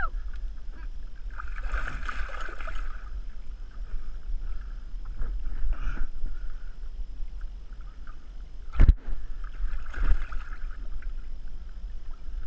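Water splashing and sloshing at a small boat's side as a hooked tusk is handled at the surface, over a steady low rumble, with one sharp knock about nine seconds in.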